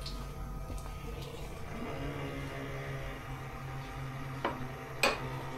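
Titan 25T CNC press brake running with a steady hum as it bends a flat steel test piece, with a small click and then a sharp metallic clack about five seconds in.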